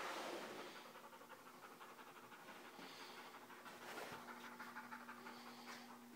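A dog panting, loudest right at the start.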